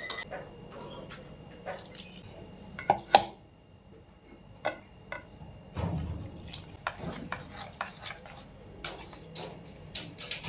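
Flour-and-water batter being mixed in a bowl: irregular wet splats and clinks, some louder than others, with quiet gaps between them.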